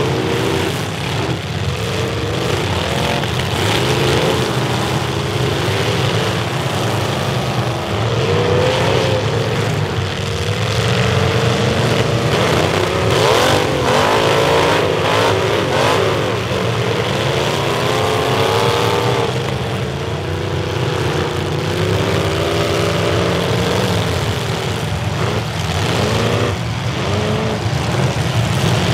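Several demolition derby cars' engines revving hard together, their pitches rising and falling over one another, with a few hits between the cars.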